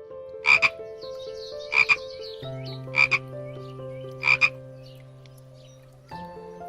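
A frog croaking: four double croaks about a second and a half apart, over soft background piano music.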